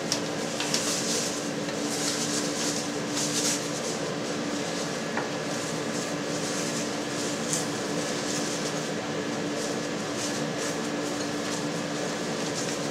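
Steady mechanical hum with one low tone held throughout, and a few soft rustles of cheesecloth being peeled off a freshly pressed cheese head in the first few seconds.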